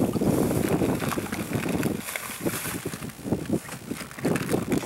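Choppy lake water slapping and splashing unevenly against the hull of a small boat, with wind buffeting the microphone.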